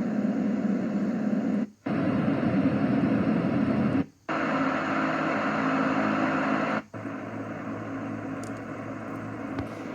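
White noise machine playing its fan sounds: steady fan noise that cuts out briefly three times as it steps to the next fan variation. Each variation has a slightly different tone, and the one from about seven seconds in is quieter.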